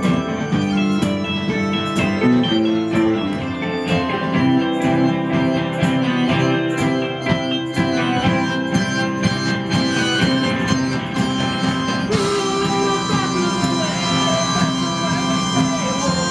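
Live band playing: strummed acoustic guitar, electronic keyboard and drums keeping a steady beat.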